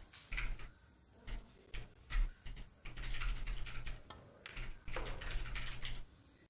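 Typing on a computer keyboard in irregular spells, with a low hum that comes and goes along with the keystrokes.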